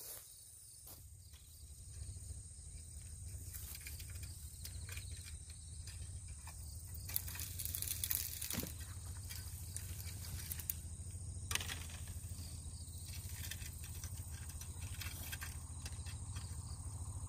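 Steady, high-pitched summer insect chorus over a low, steady rumble, with a few faint clicks around the middle.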